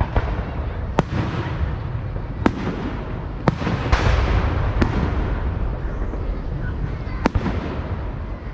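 Fireworks going off: about seven sharp bangs at irregular intervals, over a steady low rumble of background noise.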